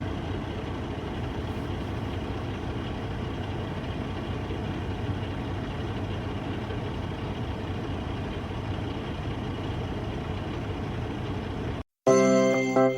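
Steady vehicle engine noise, an even low rumble that cuts off abruptly near the end.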